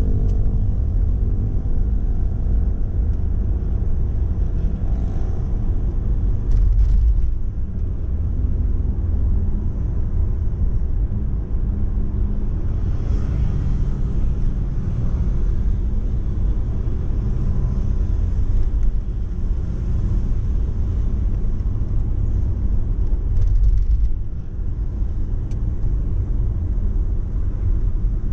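Steady low rumble of road and engine noise inside a moving Mercedes-Benz car's cabin.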